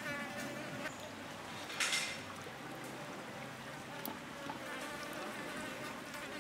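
Steady buzzing of insects in the background, with a brief soft hiss about two seconds in as a lime wedge is squeezed by hand over a wooden mortar.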